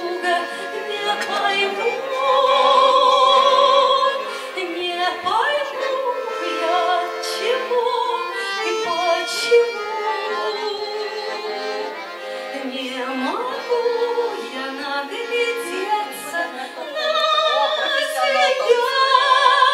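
A woman sings a slow Russian romance live through a microphone, holding long notes with a wide vibrato, over instrumental accompaniment.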